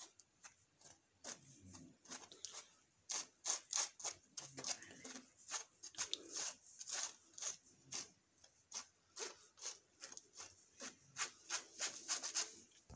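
A steel spoon scraping and stirring flour and cocoa powder through a plastic sieve to sift it, a run of short repeated scraping strokes about two a second.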